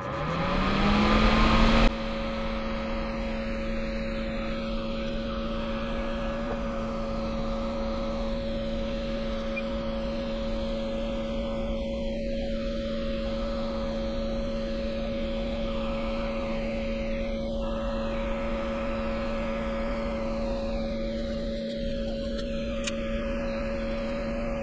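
A small electric fan or blower motor spins up, its hum rising in pitch over about the first two seconds, then runs steadily with an even hiss of moving air.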